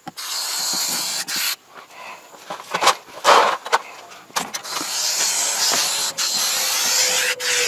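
Expanding polyurethane foam hissing out of its pressurised can as it is sprayed into a door-frame gap, in spurts, the last and longest lasting about three seconds.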